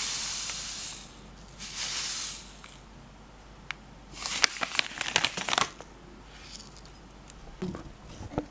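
Citric acid granules pouring from a plastic packet into a bowl with a steady hiss that tails off about a second in, followed by a short second trickle. About four seconds in, the plastic packet crinkles as it is handled.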